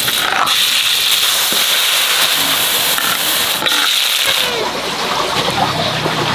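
Chopped garlic and then shrimp sizzling in hot oil in a wok: a loud, steady sizzle that starts and stops abruptly, strongest from about half a second to nearly four seconds in.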